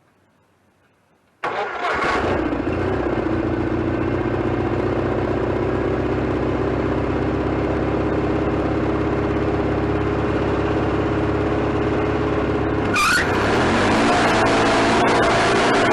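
Wood-Mizer LT40HD sawmill engine starts suddenly about a second and a half in, running on a temporary fuel tank, and runs steadily at low speed. About thirteen seconds in it revs up and holds at the higher speed.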